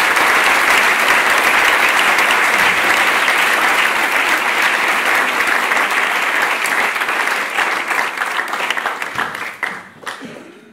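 An audience applauding, many hands clapping steadily, then dying away near the end.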